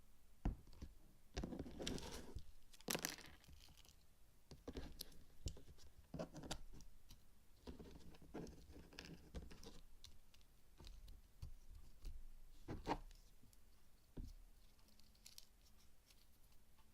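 Faint handling sounds of slime-making by hand: irregular sharp clicks and short sticky, crinkly rustles, a few of them louder than the rest.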